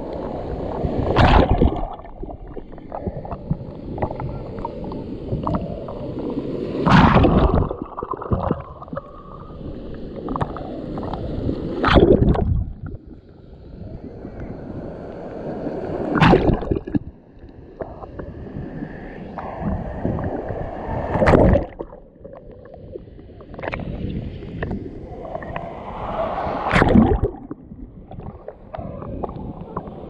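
Small sea waves breaking over a camera held at the waterline, a splashing rush about every five seconds, six times, with muffled gurgling and sloshing between as the microphone goes in and out of the water.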